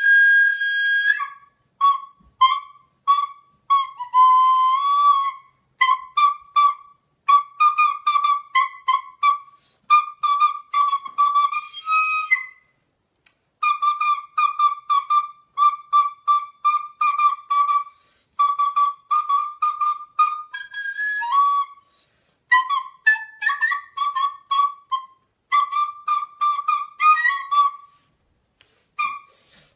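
Recorder playing a melody of quick, short separate notes, mostly repeated on one pitch, with a few higher notes and short pauses.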